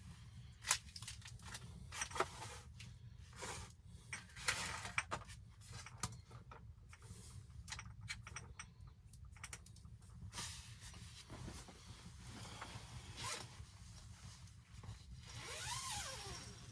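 A run of short, sharp scrapes and clicks, with a longer rasping stretch near the end.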